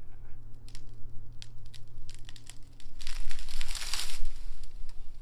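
Twigs and branches crackling and snapping with rustling foliage, swelling into a louder rush of rustling about three seconds in, over a steady low hum.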